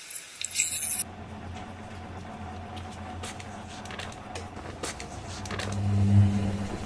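Coin-op washing machine running on its spin cycle: a steady low hum that swells about six seconds in, with scattered light clicks and rattles. A short hiss comes first and stops about a second in.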